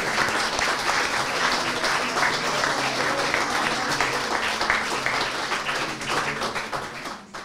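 Audience applauding steadily for a portrait unveiling; the applause cuts off suddenly at the end.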